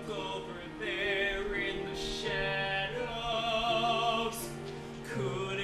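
Musical-theatre song: a man singing held, vibrato-laden notes over an instrumental accompaniment. These are the opening lines of a comic song.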